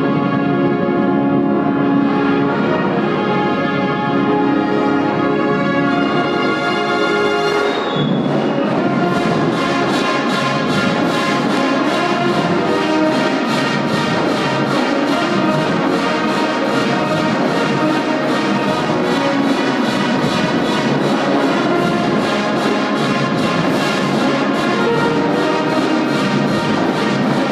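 University marching band playing: trumpets, saxophones, flutes and sousaphones hold sustained chords, then about eight seconds in the drumline and full band come in together on a steady beat.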